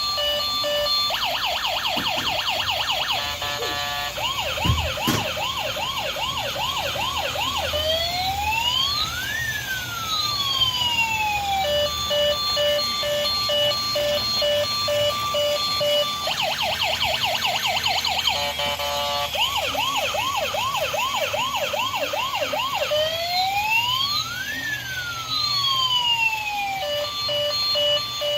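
Electronic siren cycling through several tones: steady beeping, fast yelps, a quicker warble, slower rising whoops, then one long rise-and-fall wail. The sequence repeats about every 15 seconds.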